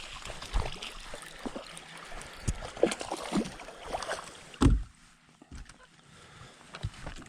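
Knocks and splashy water noise around a fishing boat, with the loudest, heaviest thump about four and a half seconds in; quieter after it.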